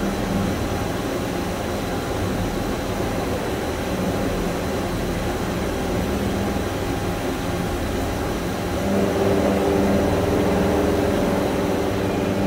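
Toshiba BP-150 horizontal boring mill running with a steady mechanical hum. About nine seconds in, a higher whine of several steady tones joins and it gets somewhat louder.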